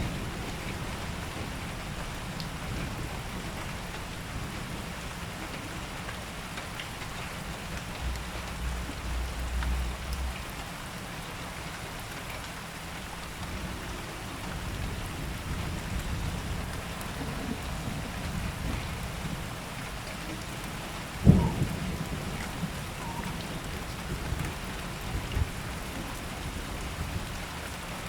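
Steady rain falling, with low rumbles of thunder. About three quarters of the way through comes a single sharp, loud crack.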